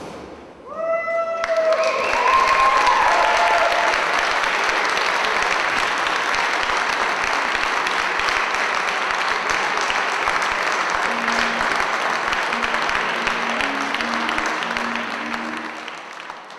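Audience applauding, a dense steady clapping that starts about a second and a half in and fades out near the end. The last few musical notes of the show's soundtrack ring out at the start.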